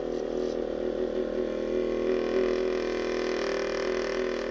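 Homedics Therapist Select Plus percussion massage gun working against the arm, its motor running at a steady, unchanging pitch.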